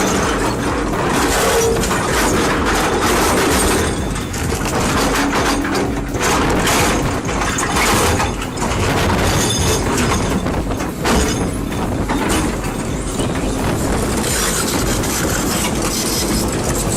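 Heavy machine running loudly, with continuous rumble and metallic clanking and clattering.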